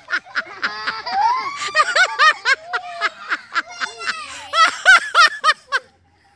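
Children laughing and squealing in quick, high-pitched bursts, cutting off suddenly just before the end.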